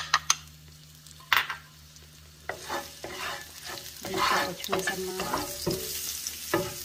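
Minced garlic frying in oil in a nonstick pan, stirred and scraped with a wooden spatula. A few sharp knocks come in the first second and a half, then the sizzling and scraping set in and grow louder from about halfway through.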